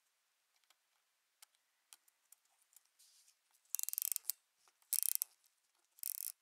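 A Hamilton Railway Special pocket watch's winding ratchet clicking as the crown is turned. A few faint clicks come first, then three short bursts of rapid ratchet clicks about a second apart, one for each winding stroke.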